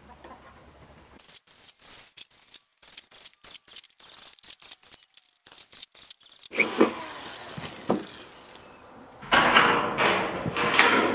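Corrugated tin (sheet-metal) panel being cut with a handheld power tool: a fast, irregular string of sharp metal clicks and crackles. Near the end a tin sheet rattles loudly as it is handled.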